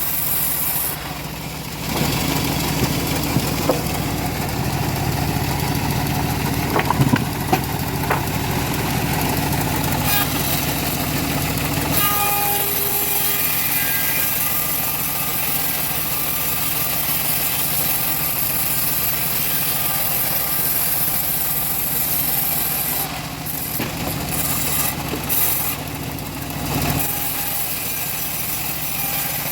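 Engine-driven homemade bandsaw mill running steadily while ripping teak; the sound grows heavier about two seconds in and eases about twelve seconds in.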